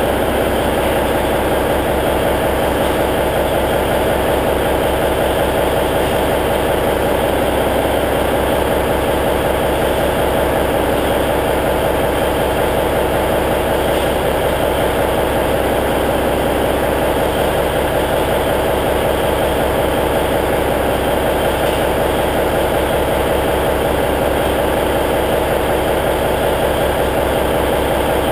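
Cummins N14 inline-six diesel in a semi tractor idling steadily while warming up after a cold start in near-freezing weather.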